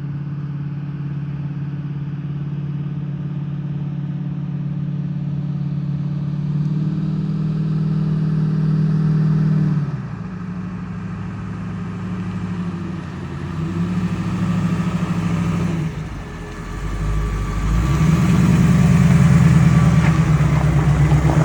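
1969 Chevrolet C10's 454 big-block V8 running through a custom stainless exhaust with Flowmaster Flow FX straight-through mufflers while driving. The engine note climbs steadily, drops back about ten seconds in, then rises to its loudest under acceleration near the end.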